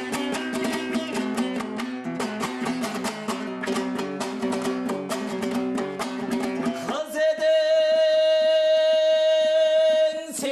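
Kazakh folk song on dombra: fast, rhythmic strumming, then about seven seconds in a singer comes in loudly on one long held note over the strumming.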